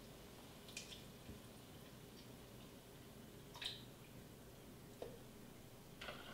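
Near silence with a few faint ticks and drips as half-and-half is poured from a measuring cup into a stainless steel pot of roux. The clearest tick comes about three and a half seconds in.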